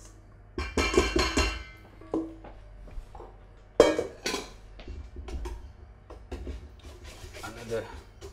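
A metal saucepan knocking and scraping against the rim of a stainless steel mixing bowl as melted chocolate and butter are tipped in, with ringing metallic clatter. A single sharp clang comes about four seconds in, then a wire whisk starts stirring the batter in the bowl near the end.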